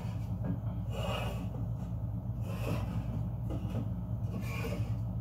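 Rustling and handling of a gift package and its contents, in short bursts a couple of times a second apart, over a steady low hum.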